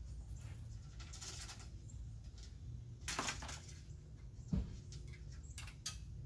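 Handling noise as a recessed ceiling light and its wire are worked into a bored hole in a wooden tongue-and-groove ceiling: scratchy scraping and rustling, one dull knock about halfway through, and a few quick clicks near the end, over a low steady rumble.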